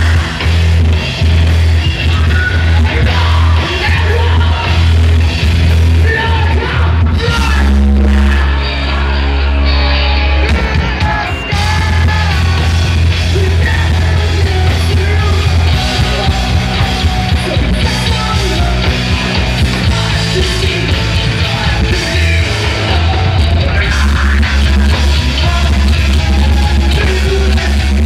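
Live rock band playing loud, with electric guitars, bass guitar, drums and a singer's vocals over the stage PA, the bass heavy and booming. The band thins out briefly about eight seconds in, then comes back at full strength.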